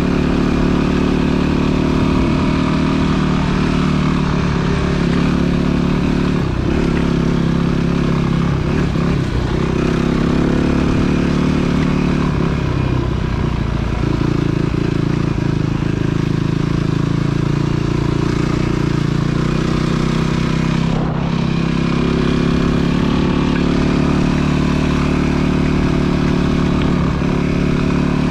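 Off-road vehicle engine running while riding along a dirt trail. Its pitch rises and falls with the throttle.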